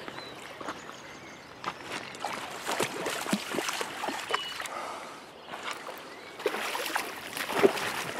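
Shallow river water splashing and trickling close by, in irregular small splashes and sloshes.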